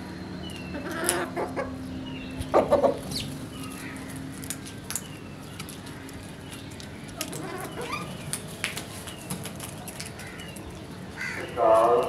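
Birds calling around house crows pecking grain off a concrete floor. Short high chirps repeat throughout, with scattered sharp clicks. Louder calls come about two and a half seconds in and again near the end.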